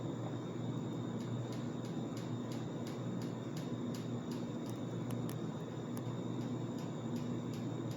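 Steady room noise, a low hum and even hiss, with faint ticks now and then.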